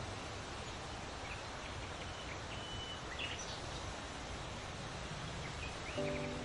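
Steady outdoor background noise with a few faint songbird calls: short chirps and one brief held whistle. Soft music with sustained notes comes back in near the end.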